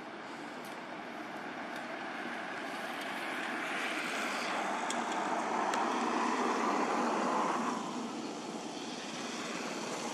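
Distant engine noise of a passing vehicle, swelling over several seconds and dropping away about eight seconds in, with a few faint high clicks.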